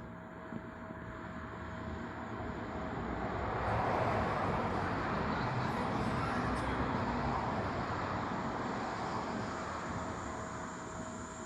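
A car passing by: a rushing tyre-and-engine noise that builds over a few seconds, holds, then fades away. A faint steady tone sounds throughout.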